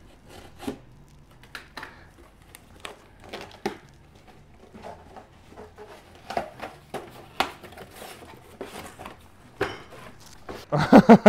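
Faint scattered clicks, taps and rustling of a handheld camera being carried through a shop. A man's voice starts up just before the end.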